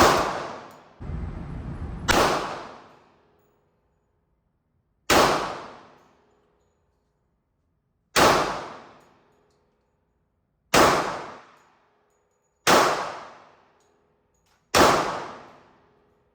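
Seven single gunshots fired one at a time at a slow, uneven pace, two to three seconds apart, each ringing out for about a second.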